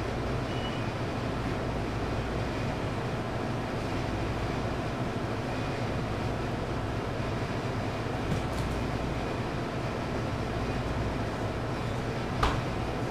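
Steady mechanical rumble and hum of commercial kitchen machinery, with a single sharp knock near the end.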